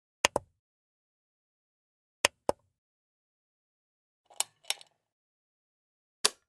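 Slide switch clicked back and forth: three pairs of sharp clicks about two seconds apart, then a single click near the end.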